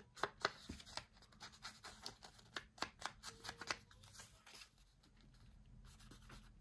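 Quick run of light taps and paper scuffs as an ink pad is dabbed along the edges of a paper piece, thinning out after about four seconds into quieter paper handling.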